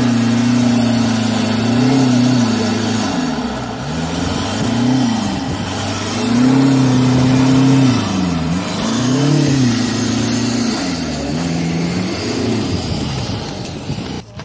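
Jeep Cherokee XJ's engine revving up and falling back over and over as its tyres spin in deep snow, the truck stuck and trying to churn its way free.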